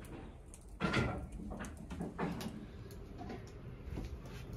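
Cookware being handled: a louder knock about a second in, then a few lighter knocks and clatters of metal pots.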